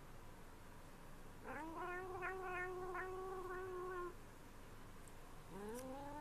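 Domestic cat giving two long, drawn-out yowls, each rising at the start and then held level. The first lasts about two and a half seconds; the second begins near the end.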